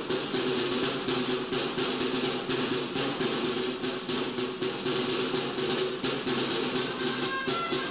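Two tabals (rope-tensioned side drums) playing a rapid, steady rolling rhythm. Near the end, dolçaines (Valencian double-reed shawms) come in with high, reedy notes.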